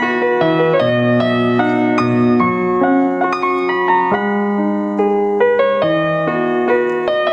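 Instrumental background music: a piano playing a steady run of notes over sustained chords, with no singing.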